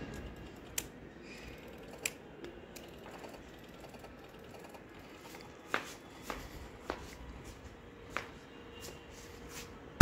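A handful of faint, irregular clicks and taps over a quiet background.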